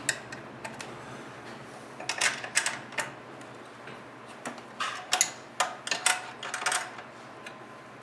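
Wrenches working the rear axle carrier bolts and nuts of a Mini Hunter 60 mini ATV as they are loosened, giving irregular bursts of small metallic clicks and ticks. The bolts are being slackened so the chain tension can be adjusted.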